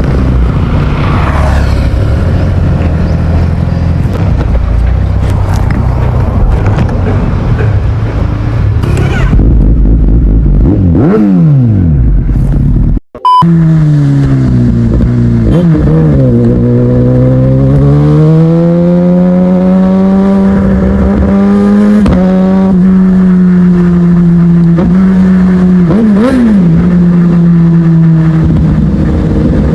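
Kawasaki ZX-10R inline-four sport bike through an Arrow Pro-Race exhaust, ridden hard. In the first half the engine revs loud and rough through the gears, ending in a falling sweep. After a brief cut near the middle, the exhaust note dips and rises, then holds a steady pitch, with a few quick blips of the throttle.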